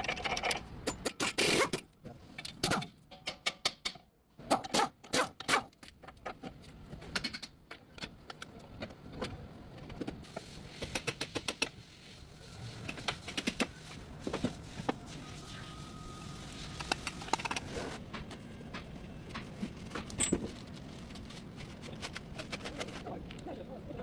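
Irregular metallic clicks and clanks of tools and car parts being handled during CV axle work, with short runs of rapid clicking.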